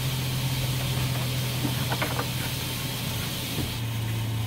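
Steam hissing from the cab of a two-foot-gauge steam locomotive, No. 9 (an 1891 Portland Company engine), with a steady low hum underneath and a few faint clicks about two seconds in.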